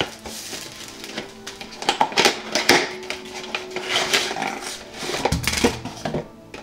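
Rustling and crinkling of a cardboard box and plastic packaging being handled as a pack of miniatures is opened and its plastic tray pulled out, with soft background music underneath.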